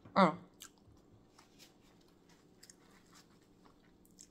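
Close-miked chewing of crawfish boil food: faint wet mouth clicks and smacks, after a short voiced sound from the eater just after the start.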